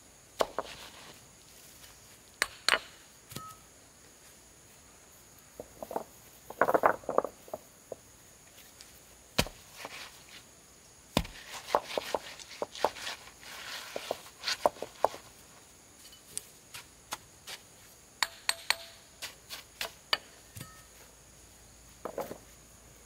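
Large field stones being set into a soil foundation trench by hand: irregular sharp clacks and knocks as stone meets stone, some in quick clusters, with scraping of soil and grit between them.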